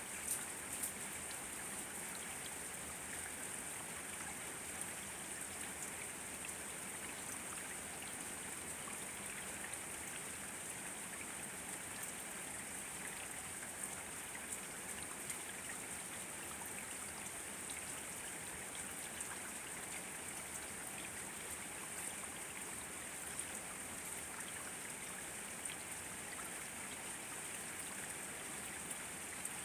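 Steady rain falling, with a constant hiss and scattered drop ticks.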